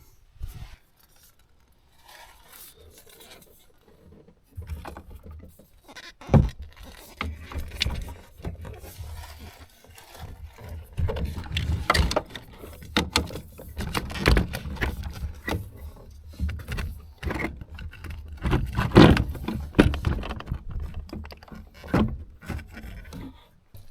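Hand work on metal parts at a truck's firewall: irregular clinks, knocks and scrapes over a low handling rumble, with sharp knocks about six seconds and nineteen seconds in.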